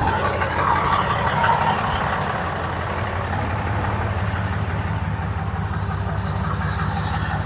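Dodge Ram 2500's Cummins inline-six turbodiesel idling steadily.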